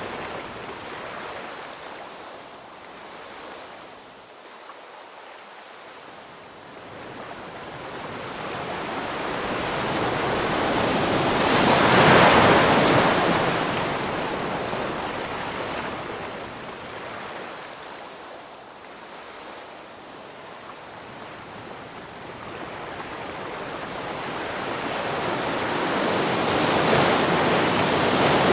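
Ocean waves washing onto a shore: the surf swells up and breaks about twelve seconds in and again near the end, ebbing to a softer wash between.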